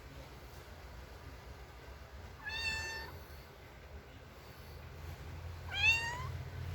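A domestic cat meowing twice: a short, level meow about two and a half seconds in, then a second meow near the end that rises in pitch.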